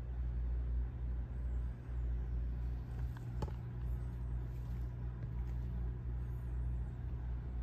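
Steady low hum, with a faint click about three and a half seconds in.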